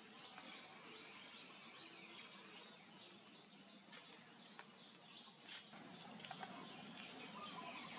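Faint outdoor ambience with a steady high-pitched insect drone, a few soft ticks, and a brief high chirp near the end.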